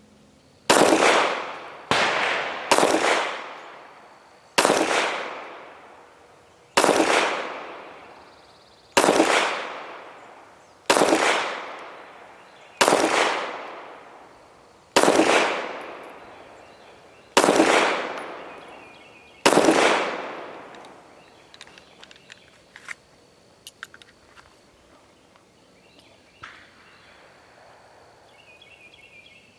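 A SCCY DVG-1 9mm pistol fired eleven times. The first three shots come about a second apart, the rest about two seconds apart, and each ends in a long fading echo. A few faint clicks follow the last shot.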